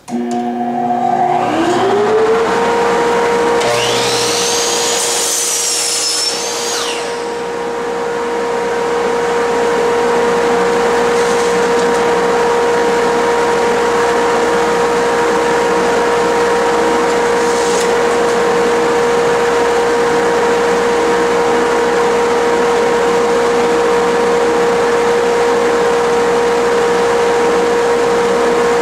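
A shop dust extractor switches on, spins up within about two seconds and then runs with a steady hum. About four seconds in, a higher whine from the miter saw rises and falls for about three seconds.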